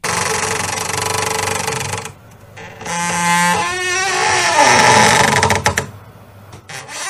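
Horror film sound design: a harsh, dense noise swell that cuts off about two seconds in, then a low hum and a wavering pitch sweep. After that comes another loud, grinding noise swell that drops away near the end.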